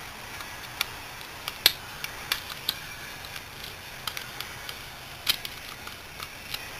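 A few sharp, scattered metal clicks and taps as small parts and tools are handled against the rotary compressor's pump housing.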